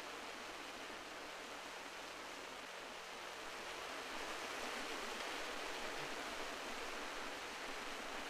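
Steady wash of sea surf on a rocky shore, swelling a little about four seconds in.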